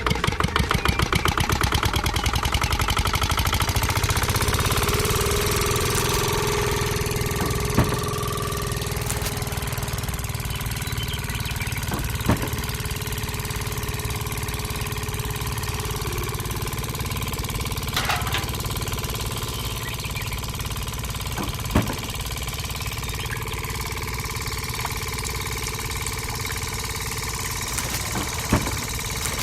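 A DIY mini tractor's small engine running. Fast, even firing pulses in the first few seconds smooth into a steady hum, and a few sharp clicks or knocks come at intervals.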